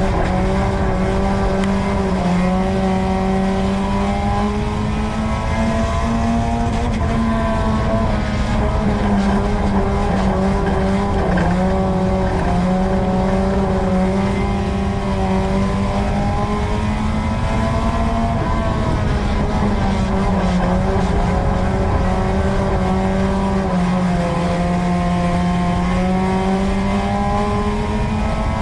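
Four-cylinder engine of a USRA Tuner dirt-track race car at racing speed, heard from inside the car. The engine note climbs and drops again every several seconds as the throttle opens and lifts lap after lap, over a constant rush of wind and road noise.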